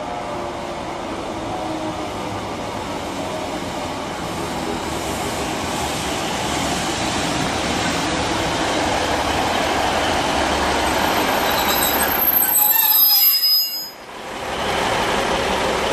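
Northern Rail diesel multiple unit running into the station, growing louder as it comes alongside the platform. Near the end a high squeal rings out as it slows, then the sound drops out briefly for about half a second.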